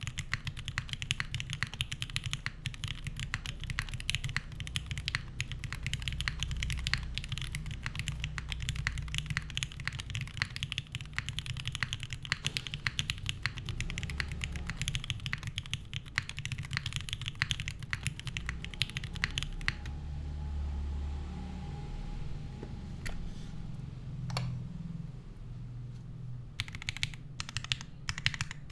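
Typing on an HK Unikorn mechanical keyboard with lubed Gateron Minks linear switches on an aluminium plate and GMK keycaps: rapid, steady keystrokes. About two-thirds of the way through the typing pauses for several seconds, with only a couple of single key presses, then it resumes near the end.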